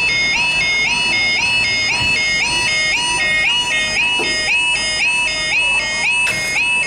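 Railway level crossing warning alarm sounding as the barriers lower: an electronic two-tone yodel, a lower note stepping up to a higher one and repeating steadily and rapidly.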